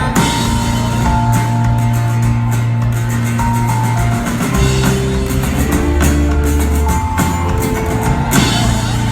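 Loud live rock band playing, with drum kit and guitar.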